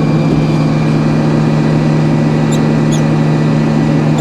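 Sawmill engine running steadily, with two short high squeaks about two and a half and three seconds in.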